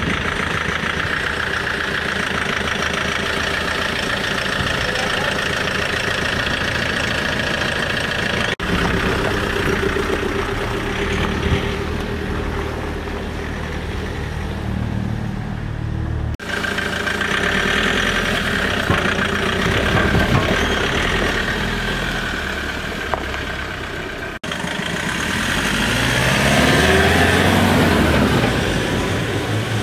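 Lifted Land Rover Defender 110 on 37-inch mud tyres driving, its engine running, in several clips cut together, so the sound changes abruptly three times. Near the end the pitch rises steadily as the vehicle speeds up close by.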